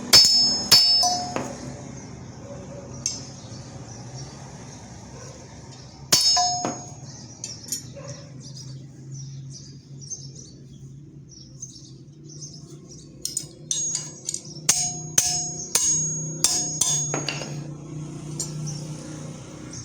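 Hammer blows on a steel rod, each a sharp metallic clang that rings briefly. A few quick blows at the start, single blows about three and six seconds in, then a quick run of about ten blows near the end.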